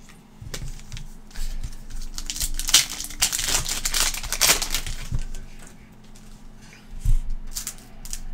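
Foil trading-card pack being torn open, its wrapper crinkling, loudest for a few seconds in the middle.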